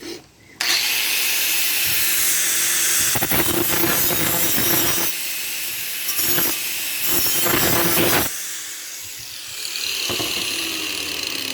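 Electric grinder starting up about half a second in and grinding the steel of an old saw blade: a steady hum under a harsh, hissing grind. It eases off after about eight seconds, its pitch falling near the end.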